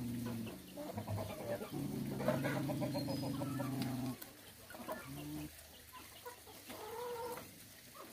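Chickens clucking with short, repeated calls. A steady low drone, the loudest sound, breaks off about half a second in, comes back for about two seconds and stops around four seconds in, after which the clucking goes on more quietly.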